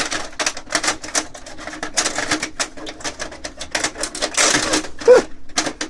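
Quick irregular plastic clicks and knocks of a toner cartridge being worked back into an HP LaserJet 1300 laser printer, over a faint steady hum.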